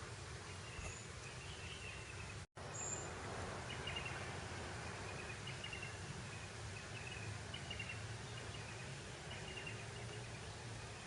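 Breeze blowing across grassland: a steady hiss of wind with a low rumble, and faint high chirps repeating throughout. The sound cuts out for an instant about two and a half seconds in.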